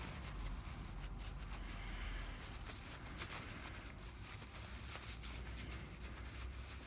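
Faint handling of small mortise-lock parts on a workbench: scattered light clicks and rustles over a low steady hum.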